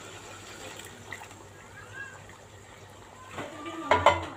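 Chicken pieces sizzling and simmering in oil in a pot. Near the end a blended garlic-ginger paste is tipped in with a wet splat, and the slotted spoon clatters against the pot as it is stirred.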